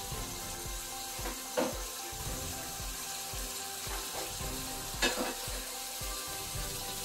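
Fried seasoned pork pieces sizzling steadily in oil in a frying pan, with two sharp clinks, about a second and a half in and about five seconds in.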